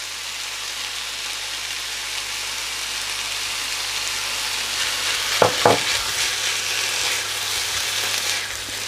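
Chicken in spicy masala sizzling on a tawa over high heat, with yogurt just added to the pan; the sizzle grows slightly louder, and two short utensil sounds come about halfway through.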